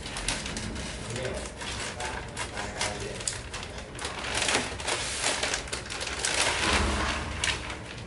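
Scissors snipping a plastic bag of coconut coir open, then the bag crinkling as the loose coir is shaken out into a polystyrene foam tray, loudest in the middle as the coir pours out.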